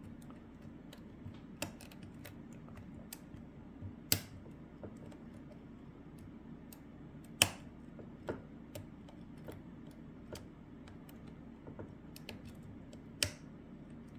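Faint, irregular small metallic clicks of a lock pick and tension wrench working the pins of a Lockwood Twin padlock cylinder, with three sharper clicks about four seconds in, past seven seconds and near the end.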